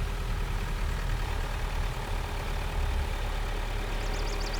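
A vehicle engine running steadily with a low rumble. Near the end a brief, rapid high-pitched warble repeats about seven times in just over a second.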